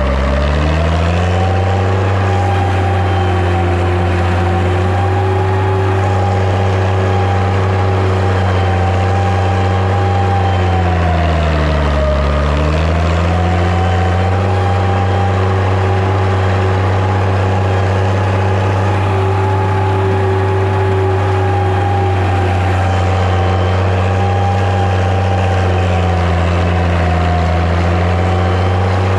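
Six-cylinder diesel engine of a Massey Ferguson 95X tractor running steadily under load, pulling a five-shank subsoiler. Its engine speed sags about twelve seconds in and comes back up, with a smaller sag near the end.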